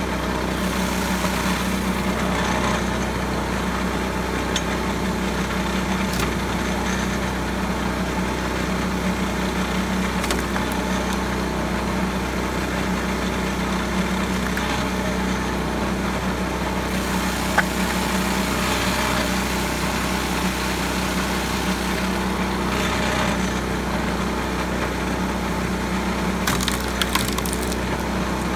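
Small gas engine running steadily as it drives a pitman-arm log splitter, with a few sharp cracks and splintering as firewood logs split.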